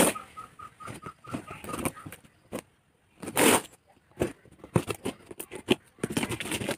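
Plastic film and packing tape on a cardboard parcel crinkling and rustling as the box is handled. There is a louder rustle about three and a half seconds in and quick crackles near the end.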